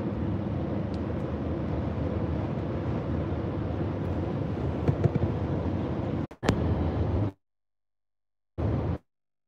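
Steady low road and engine noise inside a moving car's cabin. About six seconds in it drops out briefly with a click, then cuts off to dead silence, returns for a moment, and cuts off again.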